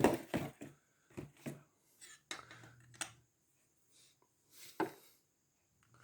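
A series of short knocks and clinks of hard objects being handled and set down, irregularly spaced, the loudest at the very start and another about five seconds in.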